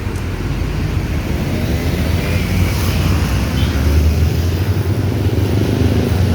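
Large bus diesel engine running close by with a deep, steady rumble; its note rises and falls around the middle.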